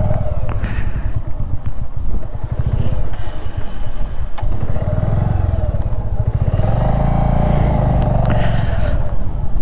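Motorcycle engine running under way, its pitch rising as the throttle opens about six seconds in, then easing off near the end.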